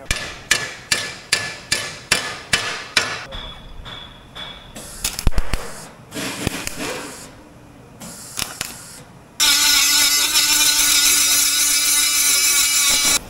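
About nine even hammer strikes on steel, a little over two a second, then a few scattered knocks. About nine seconds in, an angle grinder starts grinding down a fresh tack weld on the steel bracket and cuts off just before the end.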